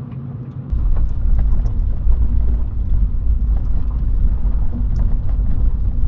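Toyota Aygo heard from inside the cabin while driving: a steady engine hum with road noise. A heavy low rumble comes in suddenly under a second in and carries on, with light scattered ticks over it.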